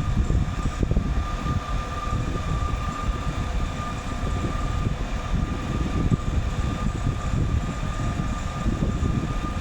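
Excavator's diesel engine running steadily under a heavy, rumbling load, with a thin high whine held throughout.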